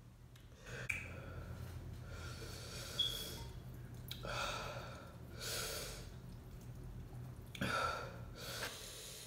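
A man breathing hard in several loud, noisy breaths and sniffs while his mouth burns from very spicy noodles. A light clink of a metal fork against a glass bowl about three seconds in.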